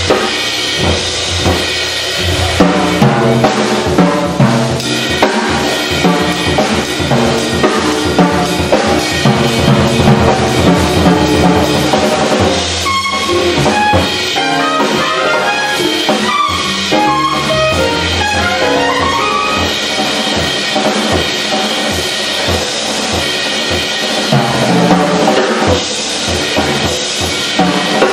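Jazz quintet playing live: trumpet and saxophone over piano, upright bass and a drum kit, with the drums prominent.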